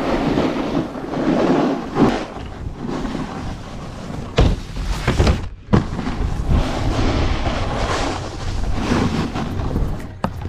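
Snowboard sliding and carving on groomed snow, its edges scraping, with wind rushing over the microphone and a few sharp knocks.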